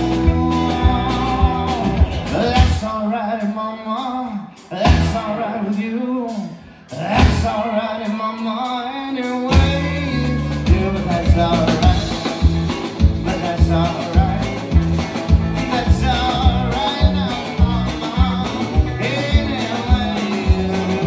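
Live country band playing, with guitar, bass and drums keeping a steady beat. About three seconds in, the bass and drums drop out for several seconds, leaving a bending melody line on its own, and then the full band comes back in.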